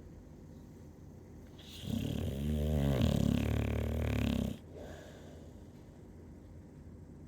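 One long, loud snore starts about two seconds in and lasts nearly three seconds, with a pitched drone that bends up and down. It stops abruptly, leaving quiet breathing between snores.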